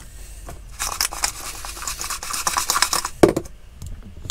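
Scratchy rustling and light clicking of hands working at a kitchen counter over a bowl of seasoned chicken pieces, with one louder knock about three seconds in.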